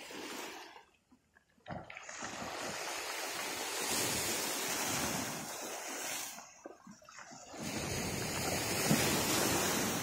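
Sea waves breaking on the shore: after a short lull, a wave crashes in sharply about two seconds in and washes up for several seconds, the surf eases briefly, then a second wave surges in.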